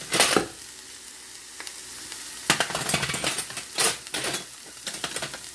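Chopped red onion sizzling in hot oil in a stainless steel skillet, with a steady hiss and several short scrapes of a utensil stirring against the pan.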